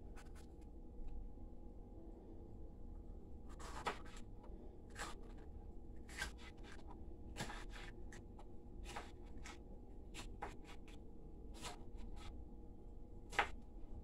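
Kitchen knife cutting green sweet pepper on a plastic cutting board: irregular taps and knocks of the blade against the board, about fifteen in all, the sharpest one near the end.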